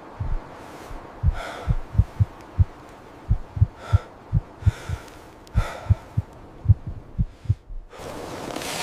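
A run of short, deep, dull thumps, about two to three a second and slightly uneven, like a heartbeat or a soft drum, with faint hissing swells between them.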